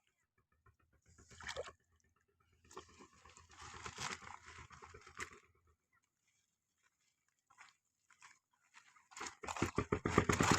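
Intermittent crackling and rustling handling noise in two short spells, then louder and denser from about nine seconds in.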